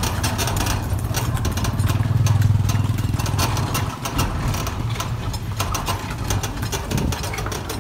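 A small motorbike engine running close by, loudest about two seconds in, over frequent clicks and knocks from the moving horse cart.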